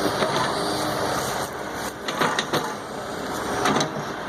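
Construction machinery engine running steadily, with a few sharp knocks or clanks about halfway through and again near the end.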